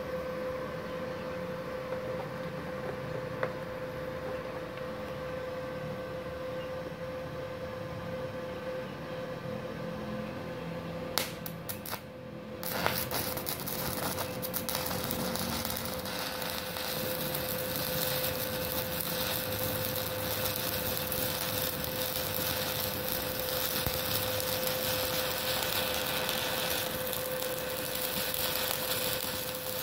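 Multipro MMA 120 G-KRK IGBT inverter stick welder at 61 amps with a 2.6 mm electrode. For about eleven seconds only a steady hum is heard; then a few sharp clicks as the electrode is struck, and the arc crackles and sizzles steadily until shortly before the end. The arc lights as soon as the electrode touches the work, since the 1300-watt household supply gives it enough power.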